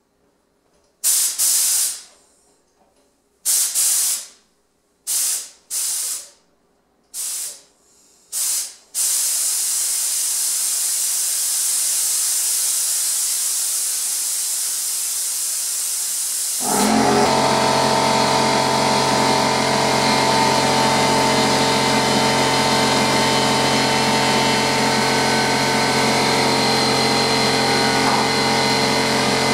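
Compressed air hissing through a drywall texture spray gun, first in about seven short blasts, then held on continuously. About 17 s in, an air compressor's motor starts and runs with a steady hum under the hiss, refilling the tank as the air is drawn down.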